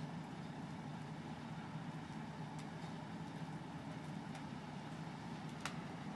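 Large heavy-capacity forklift's engine running steadily while it carries the railcar body. A few faint clicks sound through it, with a sharper click near the end.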